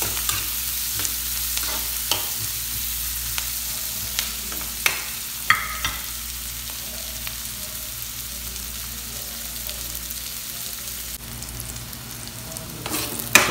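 Onion, garlic, ginger and chili sautéing in hot oil in a pan, a steady sizzle with a few sharp ticks in the first half.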